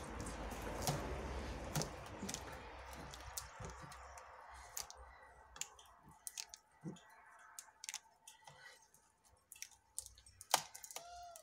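Light scattered clicks and crackles of a plastic bottle and its plastic neck collar being handled and pressed by hand, over a faint hiss that fades away in the first few seconds. A brief squeak near the end.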